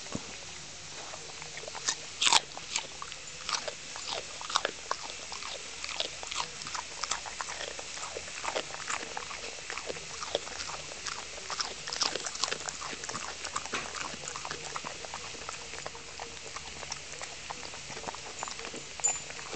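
A dog chewing and crunching a broccoli stem: a long run of sharp, irregular crunches, several a second, the loudest about two seconds in.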